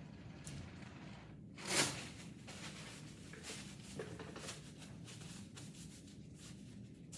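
Soft rustling and rubbing handling noises, with one short loud swish about two seconds in and a few lighter swishes and ticks after it.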